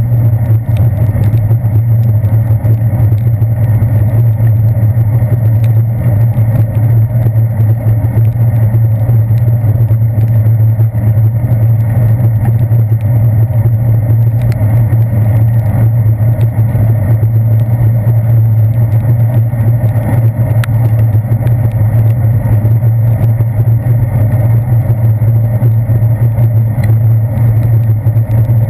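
Steady low rumble of a bicycle rolling over wet pavement, carried into a handlebar-mounted GoPro Hero 2 in its waterproof housing, with scattered faint ticks of raindrops on the housing.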